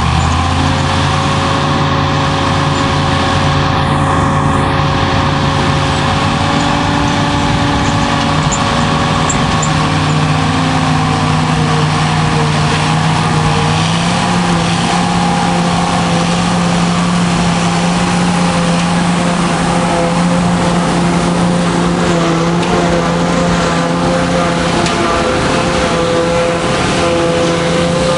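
Heavy diesel engines of John Deere silage machinery running steadily under load. The engine note steps up slightly about halfway through.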